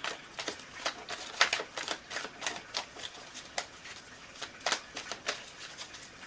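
Tarot cards being shuffled and handled: a quick, irregular run of crisp clicks and flicks.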